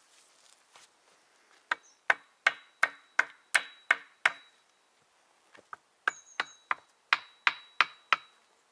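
Wood being chopped with an axe: a run of about eight quick blows, a short pause, then about seven more, with a faint high ring hanging under the blows.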